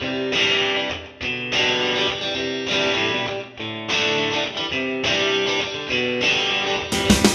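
Background music: guitar playing chords in short phrases of about a second each, with brief dips between them. Near the end the music changes to a denser, brighter part.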